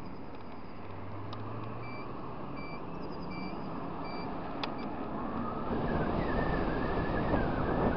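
Wind and road noise on the microphone of a moving motor scooter, with four short, evenly spaced beeps in the middle. From about six seconds in the noise grows louder as the scooter speeds up, with a wavering whine.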